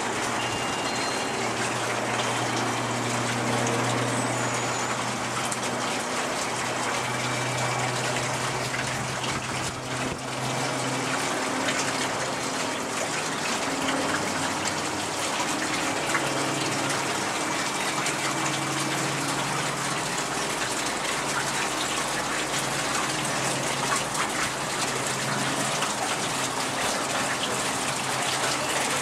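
Twin-engine turboprop transport plane flying past: a steady rushing noise of engines and propellers, with a low propeller drone that steps up and down in pitch.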